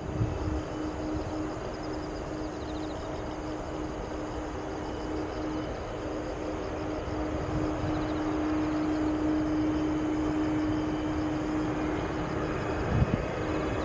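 Airbus A330-300 jet airliner on landing approach, its engines a steady drone with a held tone, growing slowly louder as it comes in. A brief thump near the end.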